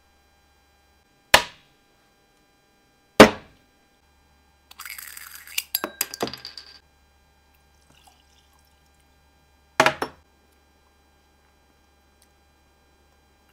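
A small glass sample bottle and a tasting glass being handled on a wooden tabletop. There are a few sharp knocks and clinks, the loudest about three seconds in and a quick double one near ten seconds. In the middle come about two seconds of scratchy rustling and clicks.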